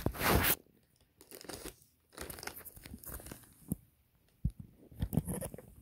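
A plastic mailer bag being torn open: a loud rip at the start, then intermittent crinkling and rustling of the plastic as it is handled.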